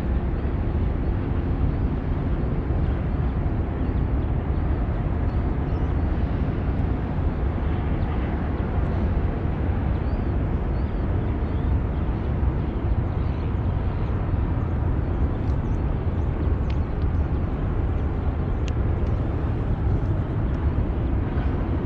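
A steady low rumble with an even hiss over it, and a few faint light clicks in the second half.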